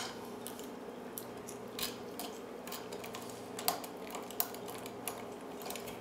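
Bogota rake pick raking the pins of an old brass Yale pin-tumbler padlock against a tension wrench: scattered light metal clicks and scrapes, the sharpest a little under two seconds in and near four and four and a half seconds. A steady low hum runs underneath.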